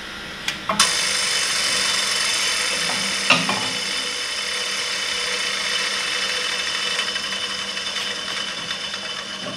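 A shop machine switched on with a click, then running steadily with a hissing, high whir that slowly eases off in level.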